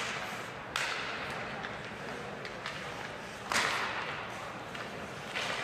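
Ice hockey play on the rink: two sharp scraping hits, one about a second in and a louder one about three and a half seconds in, each trailing off in a short hiss, over steady arena murmur.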